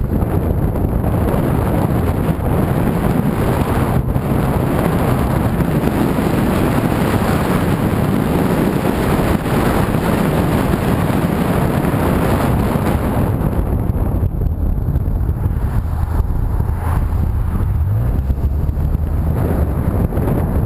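Wind rushing over the microphone of a camera mounted on a moving car, over the low rumble of the car's engine and tyres on the road. The rush thins out about two-thirds of the way through, leaving a steady low hum.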